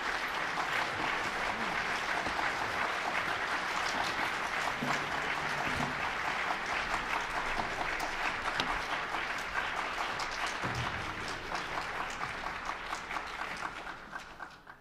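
Concert audience applauding, a dense patter of clapping that fades out near the end.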